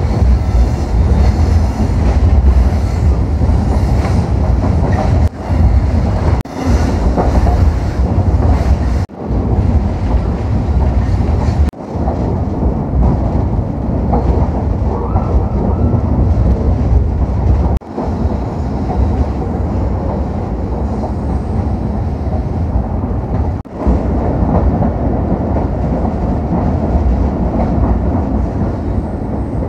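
Pakistan Railways passenger train running through the mountains, heard from aboard a moving coach: a steady loud rumble of coaches and wheels on the track. The sound drops out for an instant several times.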